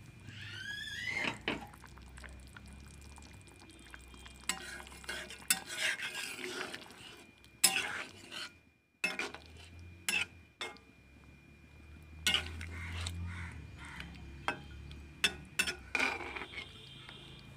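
Steel spatula stirring chicken curry in a metal kadai, scraping through the gravy and clinking sharply against the pan's sides several times, over a faint simmer.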